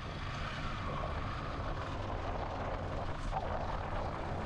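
Motorcycle running at a steady pace while riding, its engine drone mixed with wind and road rush on the microphone.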